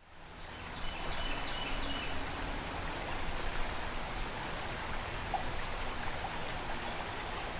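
Shallow stream rippling over a rocky riffle: a steady rush of running water that fades in at the start, with a few faint high chirps about a second in.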